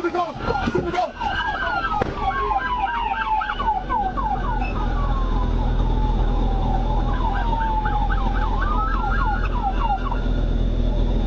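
Police car siren switching between a slow wail in long falling sweeps and a rapid yelp repeating several times a second, over a low steady rumble. A brief knock comes about two seconds in, and the siren cuts off near the end.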